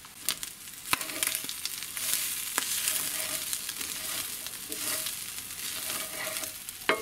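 Ground beef sizzling in a hot cast iron pan as it is stirred and broken up with a utensil, which scrapes and clicks against the pan. A few sharp clicks come near the start, and the sizzling grows louder from about a second in.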